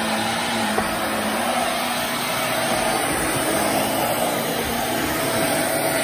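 Jimmy JV35 corded handheld vacuum running steadily, its motor giving a constant whine over the rush of air as the brush-roll head is pushed across carpet.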